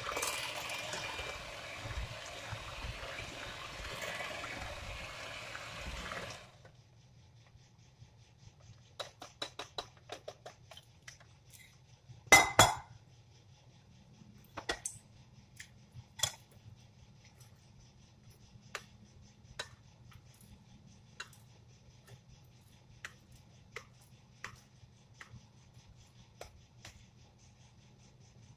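Electric hand mixer running steadily as it beats pancake batter in a glass bowl, switching off about six seconds in. After that come scattered clinks of utensils on glass and crockery: a loud clink about twelve seconds in, then a spoon tapping the glass bowl roughly once a second as the batter is stirred.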